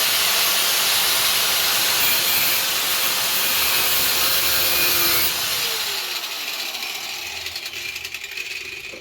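A power tool cutting for about five seconds, then let off and spinning down, its pitch falling as it slows over the last few seconds.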